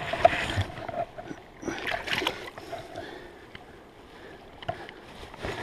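Shallow river water splashing and sloshing as a hooked grilse is held and handled at the water's edge, in two main bursts near the start and about two seconds in.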